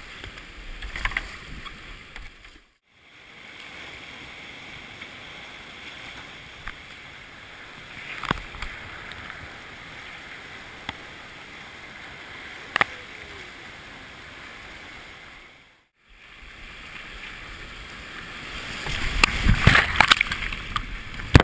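Whitewater of a small mountain creek rushing over boulders, a steady hiss of water around a kayak, with a few sharp knocks. Near the end the water gets louder and splashier as it washes over the kayak's deck.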